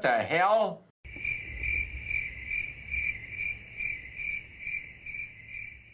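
Cricket chirping, a steady run of chirps about two and a half a second, likely a stock comic 'silence' sound effect, that starts abruptly about a second in. It follows a brief warbling, voice-like sound at the very start.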